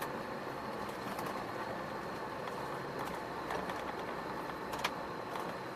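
Iveco Stralis truck driving at a steady pace, its engine and road noise even throughout, with small rattles and a sharper click about five seconds in.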